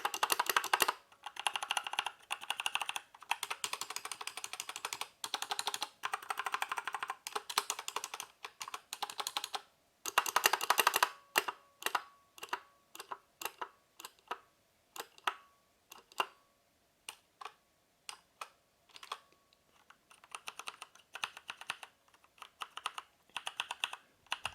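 Typing on a mechanical keyboard with brown Kailh switches: tactile, non-clicky key presses. Fast runs of keystrokes for about the first ten seconds, then slower single presses with a faint ring after some of them, then fast typing again near the end.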